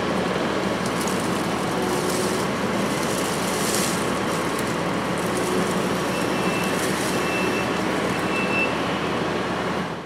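Kubota SVL compact track loader's diesel engine working steadily under load while its brush-cutting head chews into cedar brush and small trees, with stretches of harsher, higher-pitched shredding noise as the cutter tears through wood.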